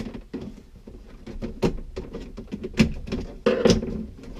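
Plastic centre dash air vent of an EF Honda Civic being pried out with a screwdriver and pulled free: a series of plastic clicks and knocks, the loudest about three seconds in and again half a second later.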